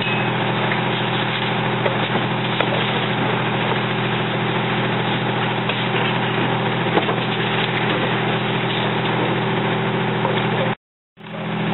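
Fire engine's diesel running steadily, a constant engine drone under a hiss, with a few faint knocks. The sound cuts out briefly near the end.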